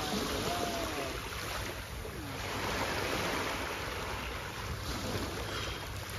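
Small sea waves washing and breaking over shoreline rocks, with wind buffeting the microphone.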